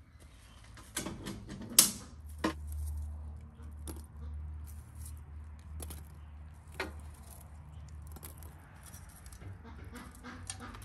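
Metal fire tongs clinking against a wood stove's firebox as hot coals are lifted out and dropped into a clay-lined bucket: a string of sharp clicks and knocks, the loudest about two seconds in.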